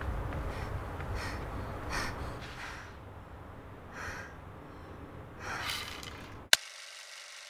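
A person breathing heavily in uneven, sharp breaths over a low, steady rumble. Near the end a sharp click cuts it off, and the low rumble drops out.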